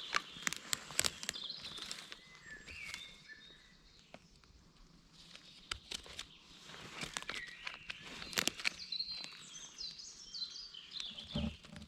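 Footsteps crackling over leaf litter and twigs, with small birds chirping in the background.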